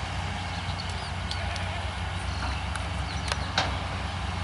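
Long-reach excavator's engine running steadily, with a scattering of sharp clicks and knocks as it works. The loudest knock comes about three and a half seconds in.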